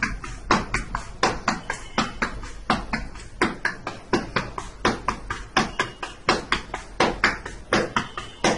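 Palm patting flatbread dough flat in a flour-dusted steel plate: quick, uneven slaps, about three a second.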